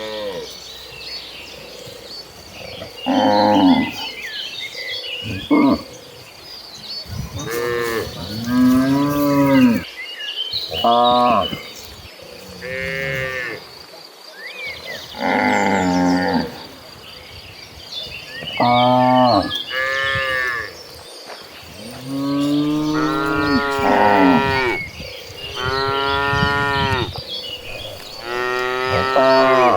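A herd of cattle mooing: more than a dozen long calls, one after another from several cows, some overlapping.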